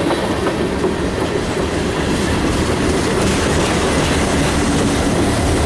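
CSX local freight train rolling past on the main line: a steady clatter of wheels on the rails over a low rumble that grows stronger near the end.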